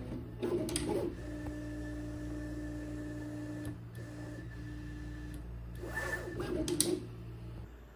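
3D printer's stepper motors whining steadily as the three ball-screw Z drives move the bed up to home against the nozzle probe, with a short pause about halfway through. A few knocks come in the first second, and a louder, rougher burst of motor noise comes near the end.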